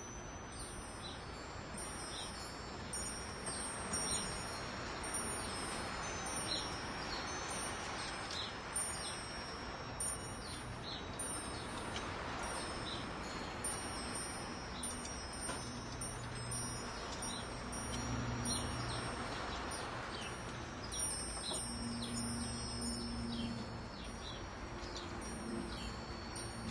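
Metal wind chimes tinkling, struck irregularly about once or twice a second and left ringing, over a steady hiss that swells and eases.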